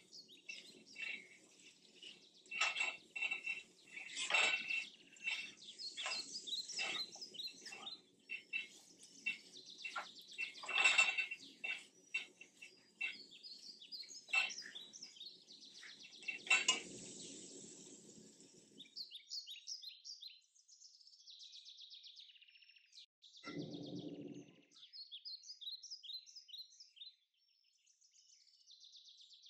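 Plastic spatula scraping and knocking against a nonstick wok as broccoli is stir-fried: a quick irregular run of clicks and scrapes over a low steady hum, stopping at about 17 s. After that, birds chirp in short high calls.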